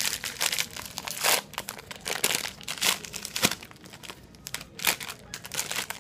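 A silvery plastic snack wrapper around a protein cookie being crinkled and torn open by hand. The crackling comes irregularly, loudest about a second in, twice between two and three seconds, and near five seconds.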